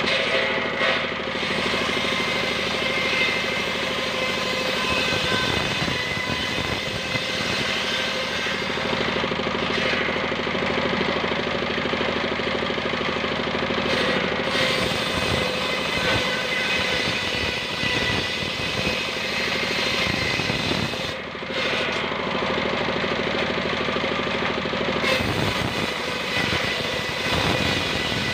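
Homemade circular saw bench ripping wooden planks: the blade cutting steadily through the wood over the steady running of its stationary engine, with a few brief dips in the cutting noise.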